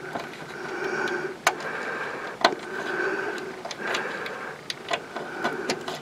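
Heavy breathing, in swells about once a second, from someone with a head cold, with a few sharp small clicks as tiny plastic front-panel connector plugs are handled and pressed onto motherboard header pins.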